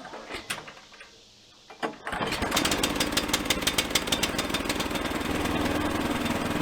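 The engine of an EZ Boardwalk Jr sawmill pull-started with its rope, catching on the first pull about two seconds in and then running steadily. A few light clicks and rattles come before it catches.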